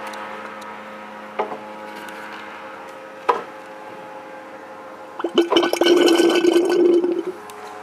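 Rotax 912 oil tank gurgling, or burping, for about two seconds starting some five seconds in, as the propeller is pulled through by hand. It is preceded by two short faint sounds. The gurgle is air from crankcase blow-by flowing back into the tank once the oil has all been pumped out of the engine into it, the sign that the dipstick can now be read.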